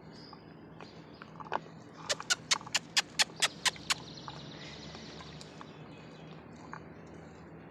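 Birds pecking at scattered feed on a hard surface: a quick run of about nine sharp taps, roughly five a second, about two seconds in.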